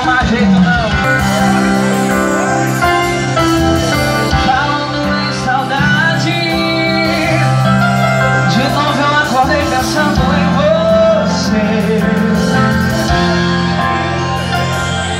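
Live forró music played on a Yamaha electronic keyboard, a melody over a bass line and a steady beat.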